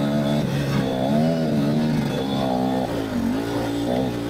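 Kamax KMX 250 single-cylinder two-stroke dirt bike engine under way, its revs rising and falling over and over with the throttle.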